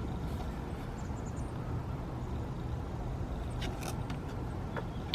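Steady low background rumble, with a few faint clicks about four seconds in.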